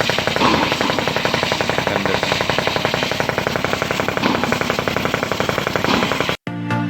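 A 55 kW diamond wire stone-cutting saw running, with a rapid, even rattle. It cuts off suddenly near the end and music begins.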